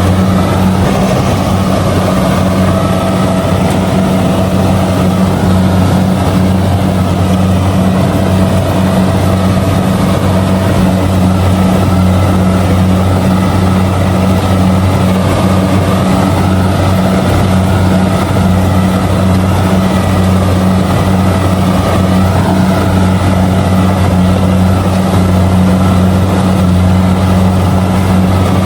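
Kubota DC70G combine harvester running steadily while harvesting rice: a loud, even, low engine drone with dense mechanical noise from the working machinery above it.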